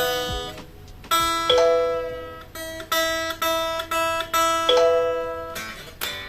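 Guitar playing a run of picked notes and chords, each ringing out and fading before the next.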